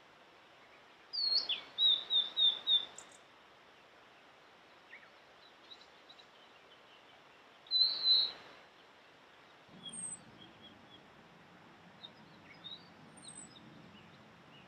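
Blue-and-white flycatcher singing: a high slurred whistle followed by a quick run of about five short notes, then a second brief phrase about eight seconds in. Fainter scattered chirps follow.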